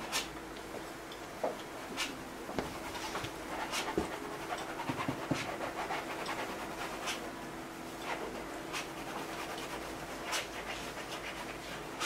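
Paintbrush working oil paint on a stretched canvas: irregular brushing with light taps, over a faint steady hum.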